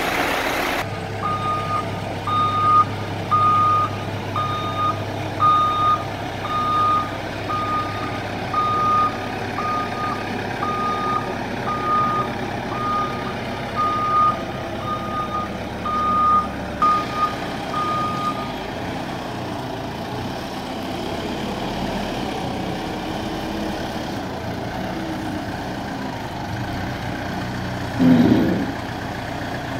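Reversing alarm of a heavy machine, most likely the Caterpillar telehandler, beeping steadily about once a second over its running diesel engine; the beeping stops about two-thirds of the way through and the engine runs on alone. Near the end comes a short, loud, low knock.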